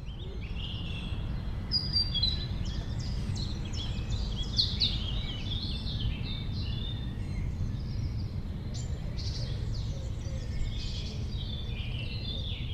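Several songbirds chirping and singing together in quick, overlapping calls, over a steady low rumble.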